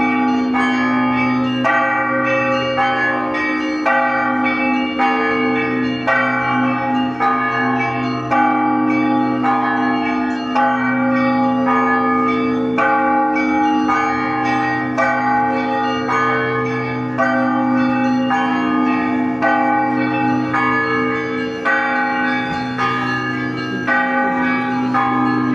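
Russian Orthodox church bells ringing a festive Epiphany peal (zvon): smaller bells struck in a steady repeating rhythm, about three strikes every two seconds, over the deep hum of larger bells that keeps sounding throughout.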